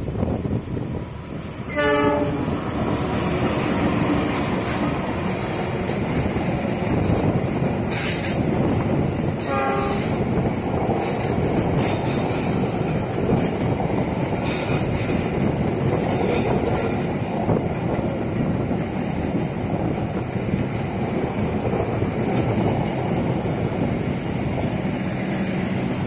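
Passenger train led by a diesel locomotive passing close by, its horn sounding briefly about two seconds in and again about ten seconds in. Between the horn calls and after them come the steady rumble of the carriages' wheels on the rails and a repeated clatter.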